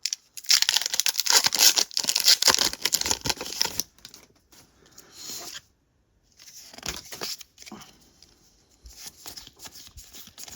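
A foil Pokémon booster pack being torn open, a loud crinkling rip over the first few seconds, followed by quieter, intermittent rustling and sliding of the trading cards being handled.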